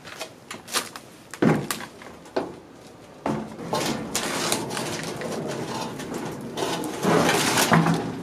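Bramble branches and leaves rustling and a metal wire grid rattling as it is hauled out of the undergrowth. A few sharp knocks come in the first couple of seconds, then denser rustling from about three seconds in, loudest near the end.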